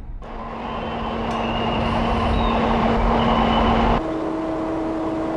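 Steady engine and traffic noise with a constant low hum, which changes to a slightly higher hum about four seconds in.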